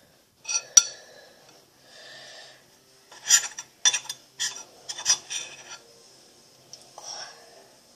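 Metal spoon stirring flour into sticky slime in a ceramic bowl: irregular clinks and scrapes against the bowl, busiest in the middle stretch, with softer rubbing in between.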